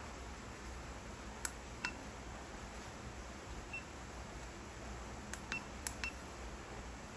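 Keypad buttons of a FNIRSI HRM-10 battery internal-resistance tester being pressed: sharp clicks, several with a short high beep from the tester. There is a pair about one and a half seconds in, a lone beep near four seconds, and a quick run of four between five and six seconds in.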